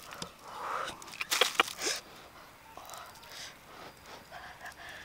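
A fire-charred cassava root being broken open and peeled by hand. The burnt skin gives a run of sharp crackles and snaps about a second and a half in, followed by quieter handling and eating sounds.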